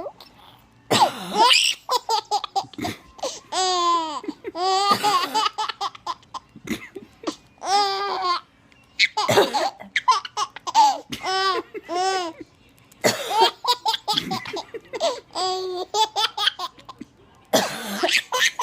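A baby laughing in repeated high-pitched peals at a woman's coughing fit, her coughs breaking in several times between the giggles.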